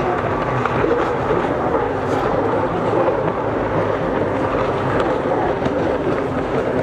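Several racing jet skis running at speed, their engines blending into a steady, dense noise.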